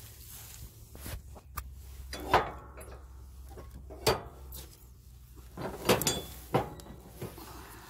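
Irregular knocks and clanks of tools and metal mower parts being handled, about half a dozen, some ringing briefly; the loudest come a little over two seconds in and near six seconds.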